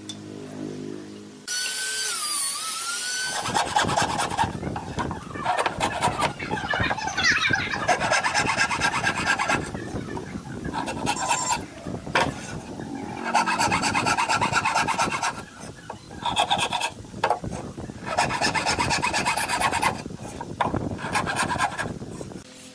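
Hardwood being cut with a hand saw, in several runs of quick back-and-forth strokes with short pauses between them.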